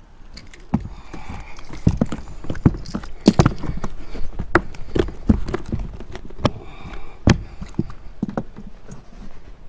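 A bass flopping on the carpeted deck of an aluminum jon boat: a run of irregular thumps and knocks, loudest and most frequent in the middle, as hands try to pin it down.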